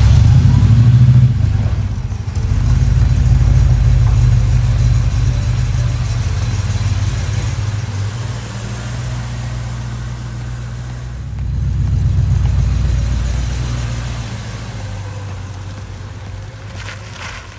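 1977 Chevy C10 pickup's V8 engine running just after being started, loudest at first and swelling again twice with throttle, then growing quieter near the end as the truck drives away.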